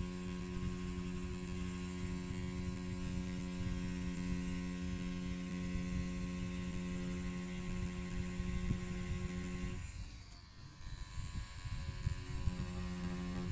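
Pen-style rotary tattoo machine with a cartridge needle running with a steady hum while lining a drawing on practice skin. It cuts out about ten seconds in and starts again about two seconds later.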